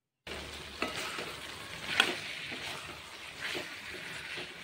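Potato, kohlrabi and pea pieces frying in oil and spice paste in a kadhai. A steel spoon stirs and scrapes through them, with a few sharp scrapes, the loudest about two seconds in. The sound begins after a brief dropout.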